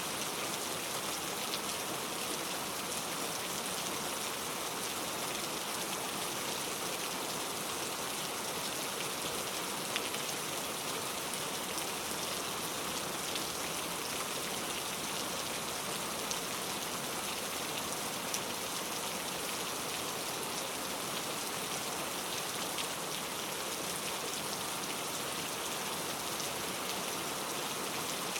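Steady rain falling, an even hiss with scattered sharper drop ticks, one standing out about ten seconds in.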